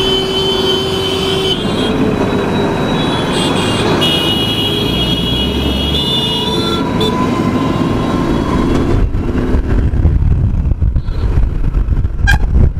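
Hero Xtreme motorcycle riding through heavy city traffic, its engine and the surrounding vehicles running together, with a steady high tone over the first second and a half. From about nine seconds in, a gusty low rumble of wind buffeting the microphone as the bike gets moving on the open road.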